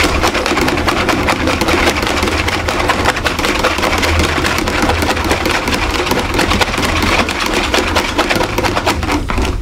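Coil whisk with a wire spring head beating a liquid egg-and-sugar mixture in a metal bowl: fast, continuous strokes of wire rattling and scraping against the bowl, stopping just before the end.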